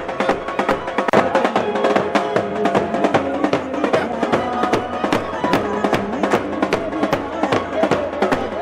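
Music with fast, steady drumming: rapid drum strikes, several a second, over sustained melodic tones.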